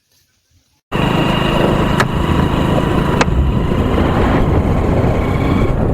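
Near silence, then from about a second in the loud, steady engine and road noise of a moving motor vehicle, with two sharp clicks about a second apart.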